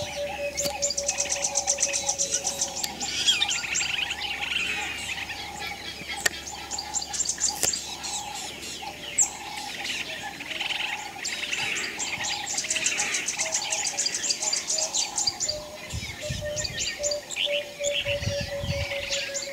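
Many birds chirping and calling together, with fast high trills that come in repeated runs.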